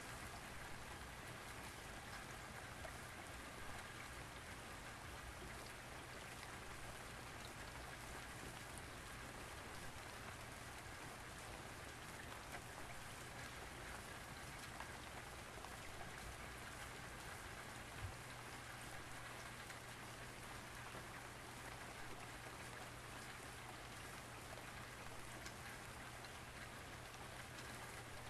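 Light rain pattering steadily, with a faint steady low hum underneath and a single click about two-thirds of the way through.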